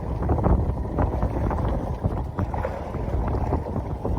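Strong wind buffeting the microphone on a small boat, a steady low rumble with a few short knocks.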